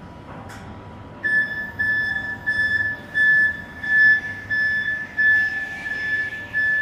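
Flexi articulated forklift's warning beeper sounding a run of high, single-pitched beeps, about one and a half a second, starting about a second in while the truck travels.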